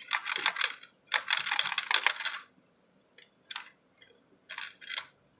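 Rapid clicking and light clattering of small hard objects, in two dense bursts over the first two and a half seconds, then five or so separate clicks.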